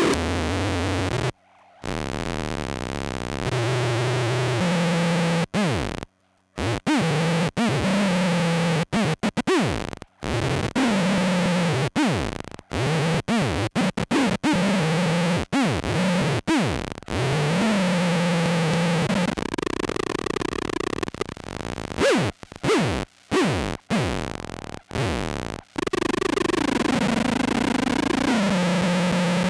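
Sub-octave synth fuzz from a Sketchy Sounds Gorantula pedal chain, a loud buzzing drone whose low pitch steps up and down. It is repeatedly chopped into stuttering cut-outs by a Krackatone momentary switch, with many quick downward pitch swoops in between.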